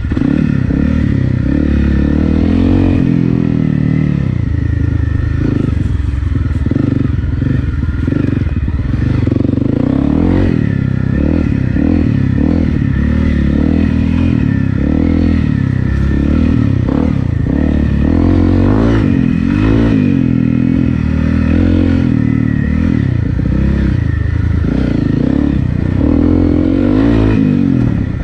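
Honda CRF250 Rally's single-cylinder four-stroke engine, fitted with an FMF Powercore 4 exhaust, running under load on a dirt trail, its pitch rising and falling as the throttle is opened and eased.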